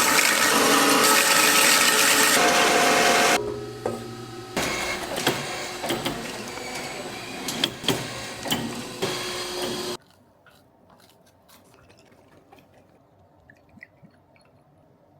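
A machine runs with a loud steady noise and then stops about three seconds in, followed by several seconds of irregular clattering and clicking of handling, then a quiet stretch with a few faint ticks.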